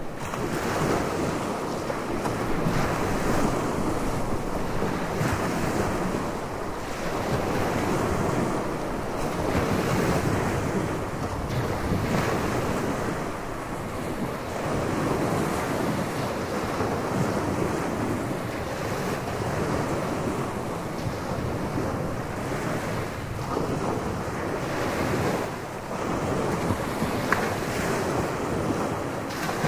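Gulf of Mexico surf breaking and washing up a sandy beach, a continuous rushing wash that swells and eases every few seconds, with wind buffeting the microphone.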